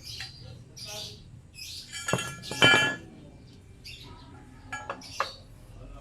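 Metal clinking and ringing: two loud strikes about two seconds in, a fainter one near the end, with short high hissy sounds in between.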